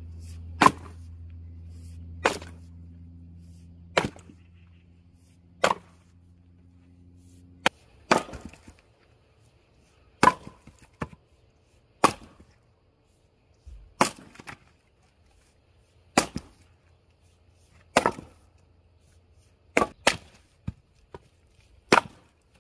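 Axe splitting black locust firewood: sharp wooden chops about every two seconds, a dozen or so strikes, a few of them quick doubles.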